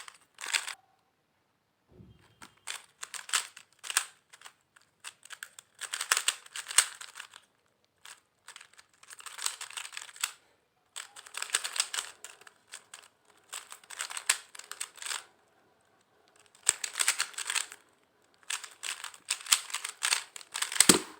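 Moyu RS3M 2021 Maglev 3x3 speed cube being turned fast through a solve: rapid flurries of plastic clicking and clacking, each a second or a few long, broken by short pauses.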